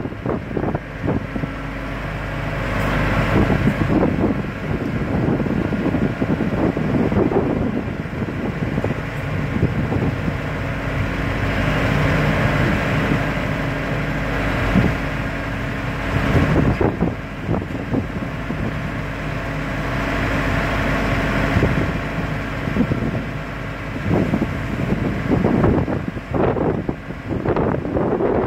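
Steady low engine hum with wind buffeting the microphone, the gusts swelling and fading every few seconds.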